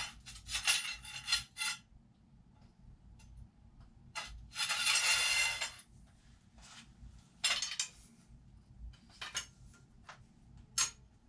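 Metal hand tools clinking and scraping against an engine's crankshaft pulley as a pulley holder and a socket on a long bar are fitted to undo the crank bolt. Scattered sharp clinks, with a longer rattling scrape of about a second near the middle.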